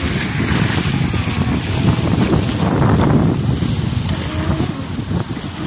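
Wind buffeting the microphone, with the faint, wavering whine of radio-controlled speedboat motors racing on the water.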